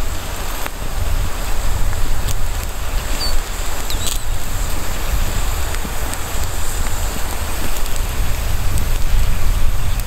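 Small campfire of wet sticks burning on snow, giving a steady hiss with a few scattered crackles. Under it runs a low rumble of wind on the microphone.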